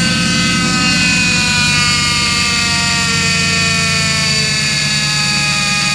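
Failing power steering pump on a 2005 Ford F-150's 5.4-litre V8 making a loud, steady whine with the engine idling, its pitch sinking slowly, over the engine's low rumble: the terrible power steering noise that was diagnosed as the pump.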